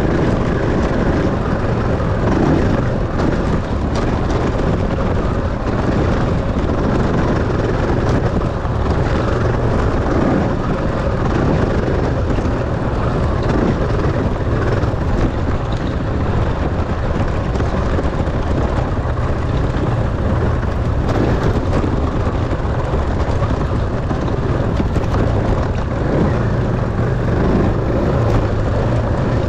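Enduro dirt bike engine running steadily as it is ridden.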